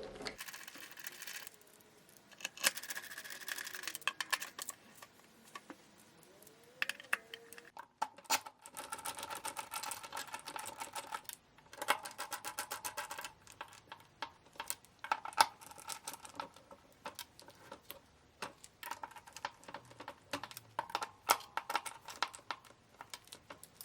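Bursts of rapid mechanical clicking, each lasting a few seconds with short pauses between, as bolts are run in to fasten a recliner's swivel base.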